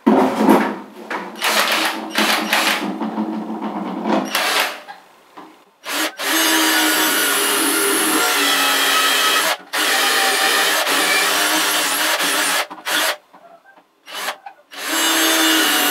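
Cordless drill running with its bit grinding into a ceramic wall tile: several short bursts at first, then a long steady run broken by one brief stop, and a few short bursts near the end.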